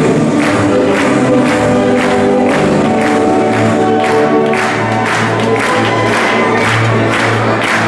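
Dance music with a steady beat and voices singing.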